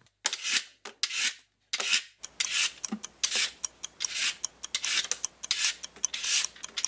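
Vegetable peeler scraping along a vegetable in short repeated rasping strokes, about two a second, with light clicks between them.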